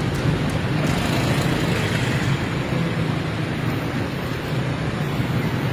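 Steady traffic and road noise heard from inside a slowly moving car: a low engine hum under an even hiss of tyres on the wet road.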